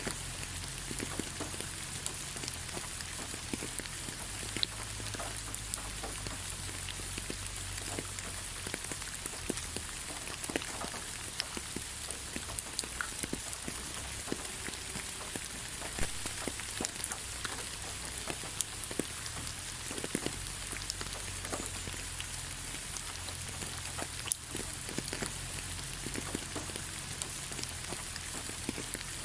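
Steady rain falling in a forest: an even hiss with many scattered drops tapping.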